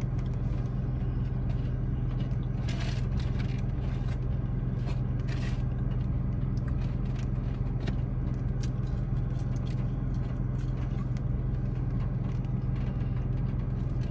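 Steady low hum of a car running, heard from inside the cabin, with scattered small clicks and rustles of chewing and handling a takeout food box.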